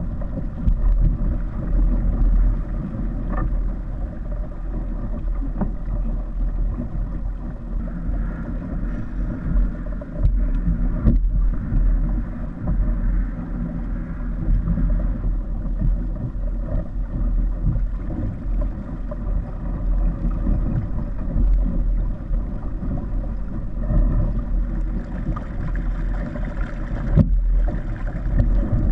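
Kayak under way on the water, a steady rush of water and wind with a heavy low rumble of wind buffeting the microphone.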